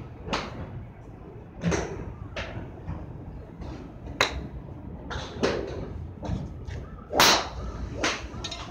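Golf clubs striking balls on a covered driving range: a string of sharp cracks every second or two. The loudest comes about seven seconds in.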